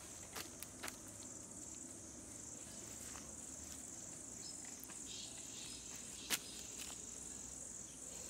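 Steady high-pitched chirring of insects, with a few sharp clicks scattered through it, the loudest about six seconds in.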